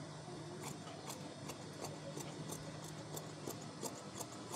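Tailor's shears cutting through cloth: a steady run of short, crisp snips, about three a second.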